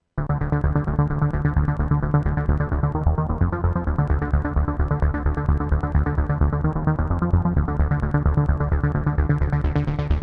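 Waldorf Quantum synthesizer playing a custom patch: a fast, steady run of repeated notes over a strong bass, starting just after a brief gap. The sound brightens near the end.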